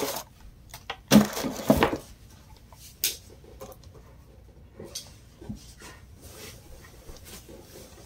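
Handling noises: a loud burst of rustling and knocks a little over a second in, a sharp click about three seconds in, then faint scattered clicks and scrapes as a small box is handled and worked at with a thin tool.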